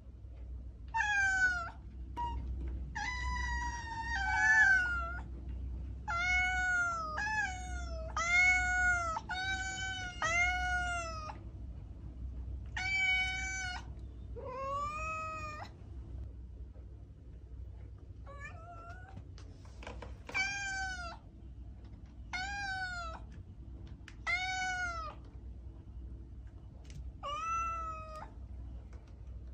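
A domestic cat meowing over and over: more than a dozen short, drawn-out meows, coming in quick succession at first and more spaced out later. A low steady hum runs underneath.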